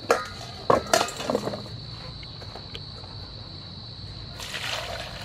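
Vegetables knocking into a stainless steel bowl twice in the first second or so. About four and a half seconds in, water poured from a plastic bowl splashes into the steel bowl to wash them. A steady high whine runs underneath.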